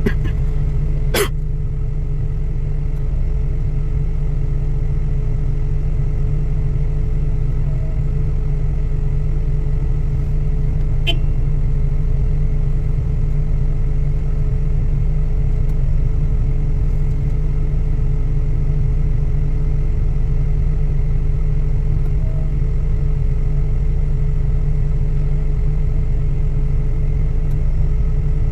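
Diesel engine of a heavy machine such as a boom truck or excavator running steadily with a low rumble, with a sharp click about a second in and another around eleven seconds in.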